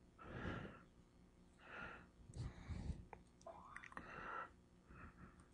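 Faint, indistinct murmured voice in several short bursts, too quiet for words to be made out, with a couple of faint clicks.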